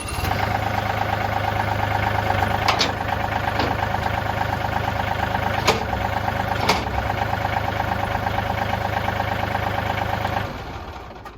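John Deere 2032R tractor's three-cylinder diesel engine idling steadily with a few light clicks, then winding down and stopping about ten and a half seconds in.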